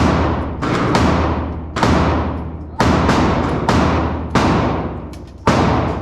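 Handgun shots, seven loud ones about a second apart, each followed by a long ringing tail, with a few fainter shots in between.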